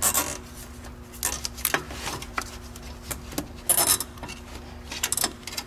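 Gloved hands working a plastic zip tie around a bracket and fastener in a car's engine bay: scattered rustles, scrapes and small plastic clicks, a handful of short bursts with a busier cluster near the middle, over a faint steady hum.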